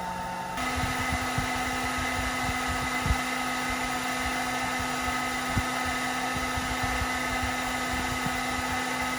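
Electric dryer running steadily on a warm setting, a motor hum with a constant whine over the rush of blown air, stepping up slightly in loudness and pitch just after the start.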